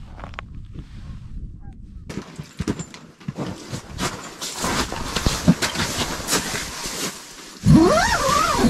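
Crackling and rustling of fabric and a nylon bag, with scattered clicks, as someone comes into a pop-up ice shelter. Near the end a loud, drawn-out vocal cry rises and then falls in pitch.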